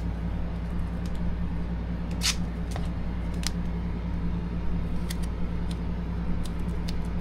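Steady low hum under a few faint clicks and short crisp rustles from hands handling a strip of tape and wrapping it around a battery cable lug. The crispest rustles come about two and three and a half seconds in.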